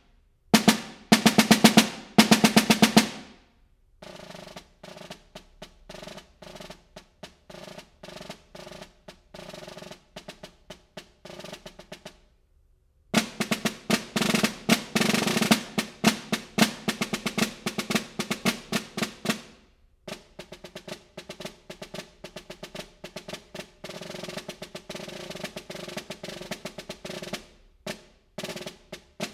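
Metal-shell concert snare drum played with sticks in a solo etude, rapid strokes and rolls. Loud passages alternate with soft ones: loud at the start, soft from about four seconds, a short rest just after twelve seconds, loud again until about twenty seconds, then soft to the end.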